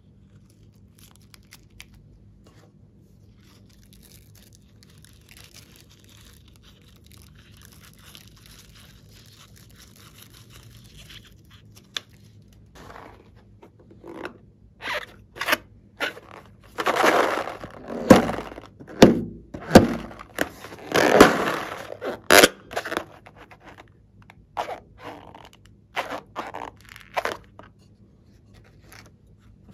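Hands squeezing and rubbing a rubber balloon. Faint handling noise gives way about halfway through to a run of loud, irregular rubbing strokes, which fade again near the end.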